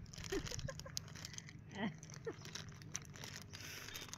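Plastic snack packet crinkling and tearing as it is bitten open, with a few short laughs.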